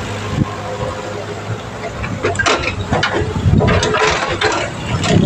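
Mini excavator engine running steadily, with short rough bursts of noise now and then.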